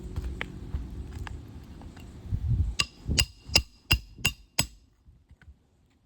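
Hammer driving roofing nails into an asphalt shingle: six quick strikes, about three a second, each with a short metallic ring.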